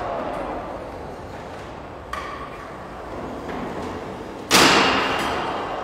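Combat robots clashing in the arena: a sudden loud crash about four and a half seconds in, which rings and dies away over a second or more. Before it, from about two seconds in, comes a short stretch of hiss with a faint steady whine.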